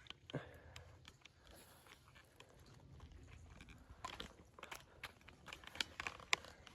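Faint, irregular crunches and clicks, growing more frequent from about four seconds in.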